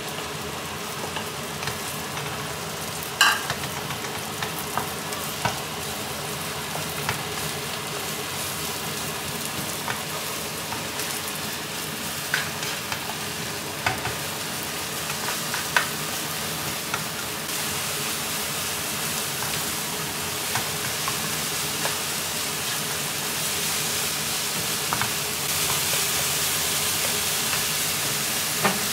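Sesbania flowers, egg white and minced pork stir-frying in a nonstick pan, with a steady sizzle under a wooden spatula stirring and scraping. Occasional sharp clacks come from the spatula hitting the pan. The sizzle grows louder in the second half.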